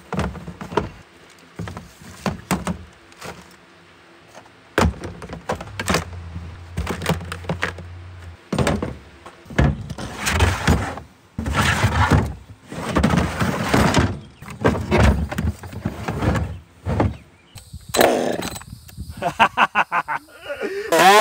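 A string of knocks, thuds and clattering, some single and sharp, some in longer noisy runs.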